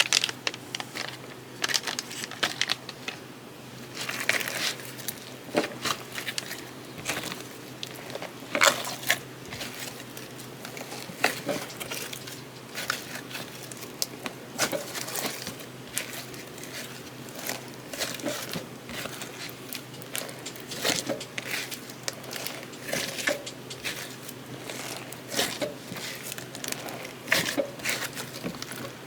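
Slime being squished and kneaded by hand, giving irregular sticky crackles and pops.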